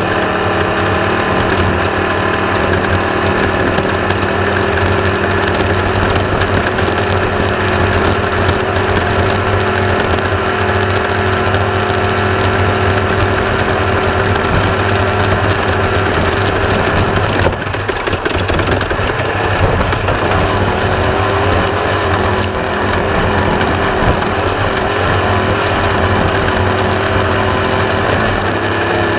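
The air-cooled 1600cc VW engine of a Class 1/2-1600 off-road race buggy, running hard at steady revs with a constant mechanical rattle over it. The engine note dips briefly about two-thirds of the way through, then picks up again.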